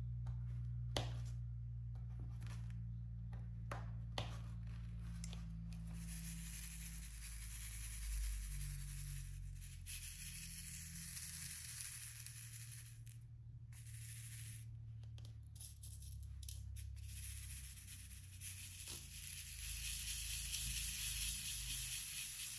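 Diamond painting work sounds: a few sharp clicks of the drill pen pressing resin drills onto the canvas in the first few seconds, then a long rustling rattle of small plastic drills shifting in the sorting tray, over a low steady hum.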